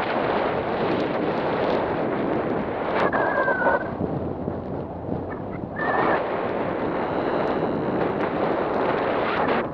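Wind buffeting the microphone of a paraglider pilot's camera in flight, a steady rushing noise. Two brief high tones come through, about three and six seconds in.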